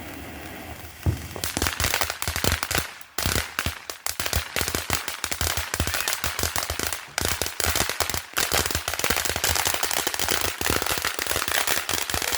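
Consumer firework crackling: rapid, dense volleys of sharp cracks and pops, starting about a second and a half in and running almost without a break, the final stretch of a long-burning firework.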